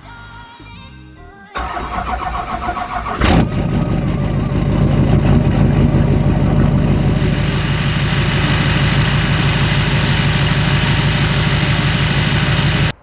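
Duramax diesel engine cranking, catching about three seconds in, then idling steadily. The sound cuts off abruptly near the end.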